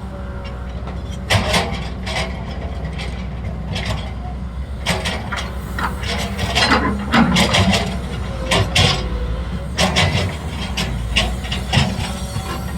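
A steady, low machine hum like a running engine or motor, with sharp clattering knocks at irregular intervals.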